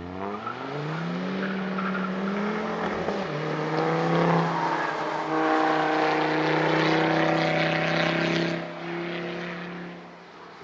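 Ford Focus ST's 2.5-litre turbocharged five-cylinder engine accelerating hard: the revs climb, drop at a gear change about three seconds in, then hold a high, steady note. Near the end the driver lifts off and the sound fades as the car pulls away.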